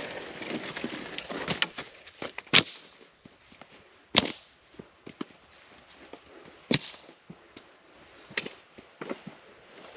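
Dry firewood being broken up: four loud, sharp wood cracks a second or two apart, with smaller cracks and some rustling between them.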